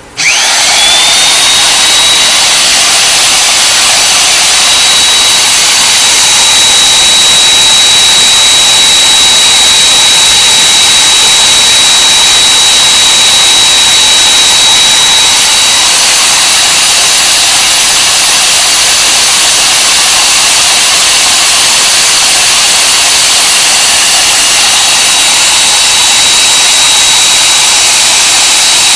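Hougen HMD925 magnetic drill press motor switched on, winding up within the first second to a loud, steady high-pitched whine over a strong hiss as it runs at speed.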